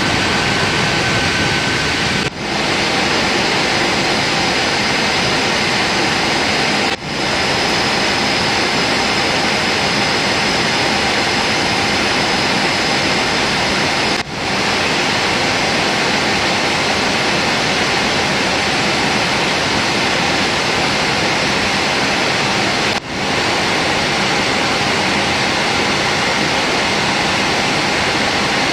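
Steady cabin noise inside a Boeing 747-8 airliner in flight: an even rush of engine and airflow noise with a faint steady whine. It drops out briefly four times.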